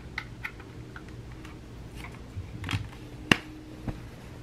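Scattered light clicks and taps from a plastic desk lamp being handled and switched, with one sharper click about three seconds in. The lamp is not yet lighting.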